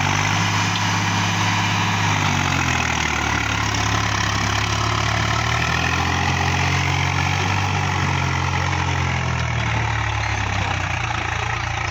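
Swaraj 735 FE tractor's three-cylinder diesel engine running hard while hauling a loaded sand trolley through wet sand and mud, its note sagging slightly and recovering a few times under the load.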